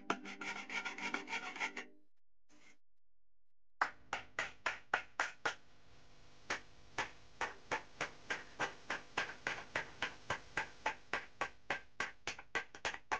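A hand tool scraping over the dented steel front mudguard of a scooter in short, quick, regular strokes, about three or four a second, with a pause of a couple of seconds near the start.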